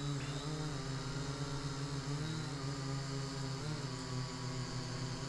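Syma X8W quadcopter's motors and propellers buzzing steadily as it lifts off the grass, the pitch dipping and wobbling briefly a little after two seconds in and again near four seconds with throttle changes.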